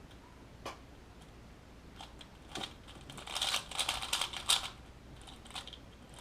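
A 3x3 Rubik's cube being turned by hand: a few single clicking turns, then a quick run of clicking turns from about three to four and a half seconds in.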